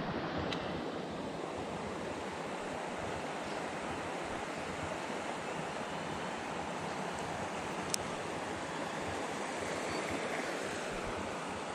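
Steady rush of flowing creek water, with a single sharp click about eight seconds in.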